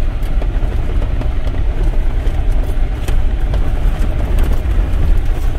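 Jeep driving slowly over a rough dirt and gravel trail, heard from inside the cab: a steady low rumble of engine and tyres, with faint scattered clicks from stones.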